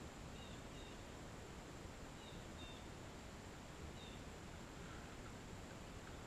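Faint outdoor ambience: a steady hiss with a thin, high-pitched steady drone, and a few faint short bird chirps scattered through it.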